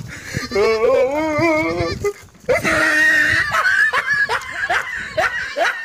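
A goat bleating in a long quavering call, followed by a run of short falling bursts of laughter from a person.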